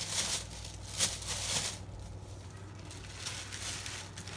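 Brief rustling of packing materials being handled, once at the start and again about a second in, over a steady low hum.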